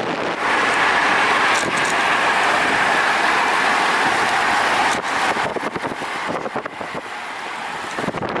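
Wind rush and road noise from a moving car, steady for about five seconds, then rougher and gusting.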